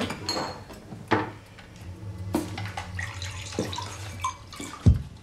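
Glassware and crockery clinking as a drink is poured, over a low steady hum, with a loud low thump near the end.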